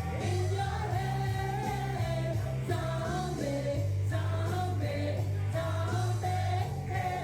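A song with a singing voice, in a rock or pop style, over a steady bass.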